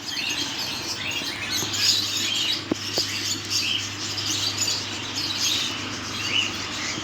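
Many small cage birds chirping together in a continuous overlapping chatter, over a steady low hum.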